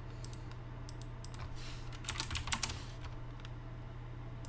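Computer keyboard keys and mouse buttons clicking, scattered single clicks with a quick run of keystrokes about two seconds in, over a low steady hum.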